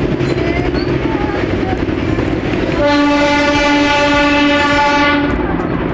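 Darjeeling toy train running with a steady rumble and light clatter, its diesel locomotive sounding one steady horn blast about three seconds in that lasts roughly two and a half seconds.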